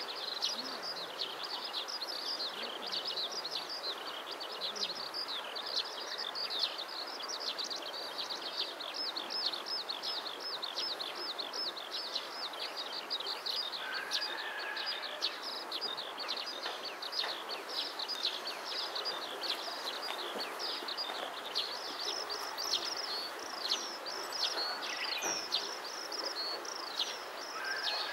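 Birds chirping without pause, a quick run of short high notes several times a second, over a steady outdoor background hiss.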